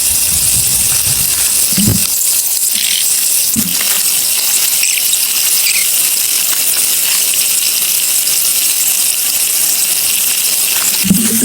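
Stream water running with a steady, even hiss, with a few soft low knocks or small splashes, one near the start and one near the end.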